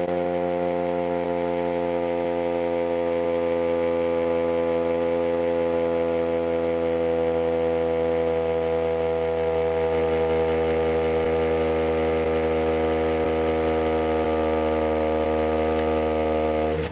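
Makita cordless combi drill in hammer mode, boring a large masonry bit into a brick: a steady, pitched motor whine. The drill is slowing as its 1.5 Ah battery is nearly flat.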